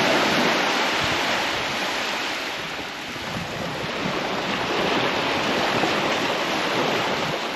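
Small waves breaking and washing up a sandy shore, swelling and easing twice, with some wind on the microphone.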